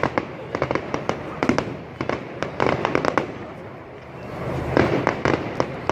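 Fireworks bursting and crackling: a rapid, irregular run of sharp pops and cracks that dies down midway, then picks up again near the end.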